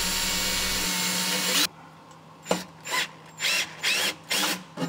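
Cordless drill with a twist bit boring into a trailer's steel chassis: a steady whir that cuts off suddenly under two seconds in, followed by a string of short scraping bursts, about two a second.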